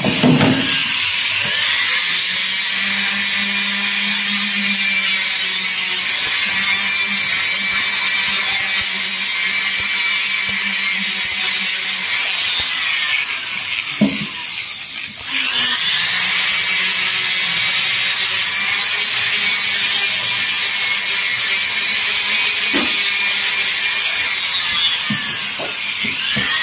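High-speed rotary tool on a flexible shaft, its small abrasive wheel grinding and smoothing the inside of an aluminium motorcycle crankcase with a steady high whine. It cuts out for a moment a little past halfway, then starts again.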